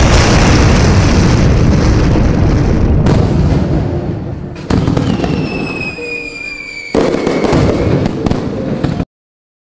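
Fireworks-like explosion sound effect: a loud, dense burst of noise, with a fresh burst about five seconds in carrying a falling whistle over it, and another about seven seconds in. The sound cuts off abruptly near the end.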